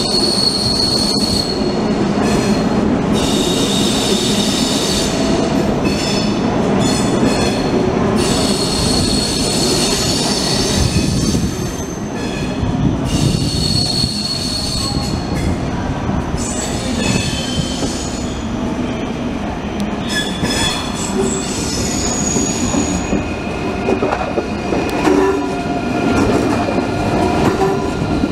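ICE high-speed train rolling slowly by with a steady low rumble, its wheels squealing on the curved track in several high-pitched tones that come and go.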